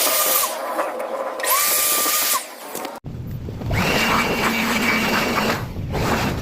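A small electric motor with a hiss runs in two short bursts, rising in pitch as it starts and stopping each time. After an abrupt break, a rougher, rumbling machine noise with a rushing sound runs on.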